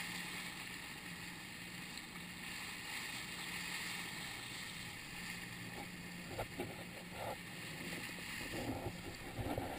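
Small outboard motor on an inflatable rubber boat running steadily under way, a low even hum under the hiss of rushing water and wind. A few irregular thumps come in the last few seconds.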